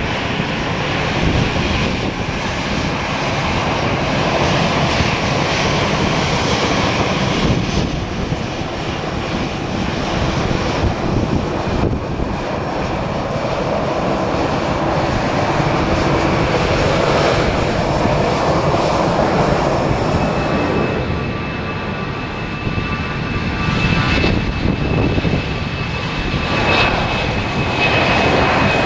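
Jet engines of an Airbus A320 airliner running as it taxis and rolls onto the runway, a steady loud rush. About two-thirds of the way through, a steady high whine joins in as the engines are brought up for the takeoff roll.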